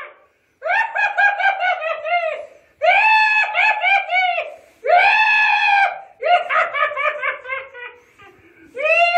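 A high-pitched voice alternates between quick cackling runs of laughter and long, drawn-out screams, in phrases a second or two long with short gaps between them.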